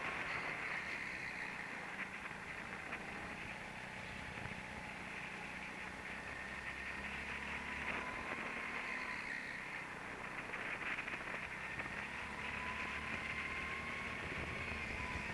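Go-kart running at speed, heard from onboard: a steady noisy drone with a thin whine that drifts up and down in pitch.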